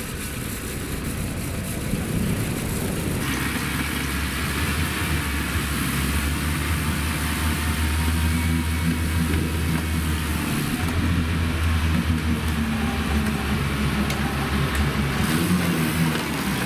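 UAZ Bukhanka van's engine working under load as the van claws up out of a muddy ditch, short of grip, on a tow line. A rushing noise joins about three seconds in, and the engine note strengthens and rises a little in the second half.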